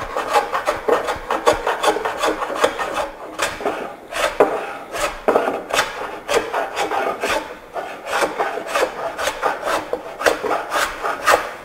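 No. 5 jack plane shaving a wooden board in quick, short strokes, about three a second, set for an aggressive cut to take down a high corner and remove twist.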